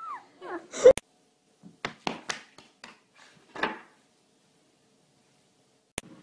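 A puppy's brief high whimpers, cut off by a sharp knock about a second in. A few short scuffing sounds follow, then a single click near the end.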